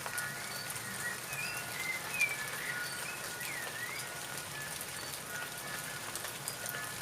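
Steady rain falling, with individual drops ticking. A bird chirps a few times between about one and four seconds in.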